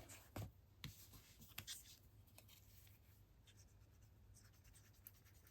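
Near silence with a few faint taps and rustles of paper and card being handled, mostly in the first two seconds.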